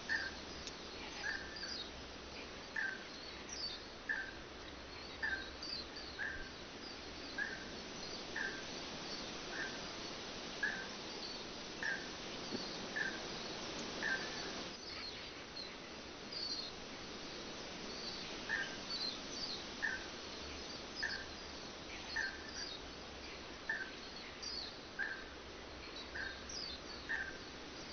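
Forest birds calling: one repeats a short, even note a little more than once a second, pausing for a few seconds mid-way, while others give scattered higher chirps. Under them runs a steady background hiss.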